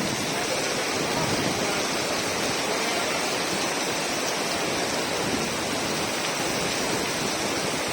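Rain falling steadily, an even, dense hiss.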